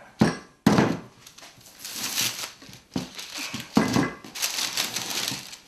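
Handling of a clamped wooden glue-up and its steel F-clamps on a workbench: a few sharp knocks of wood and clamp against the bench, with rustling and crinkling of the sheet laid under the glue-up.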